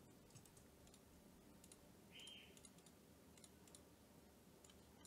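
Near silence with faint, scattered clicks from a computer mouse and keyboard, and a brief faint noise about two seconds in.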